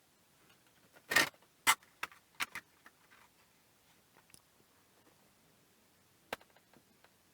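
Sharp clinks and clacks of small hard objects being handled and set down on a workbench: a quick cluster of about five a second or so in, then scattered faint ticks and one more clack near the end.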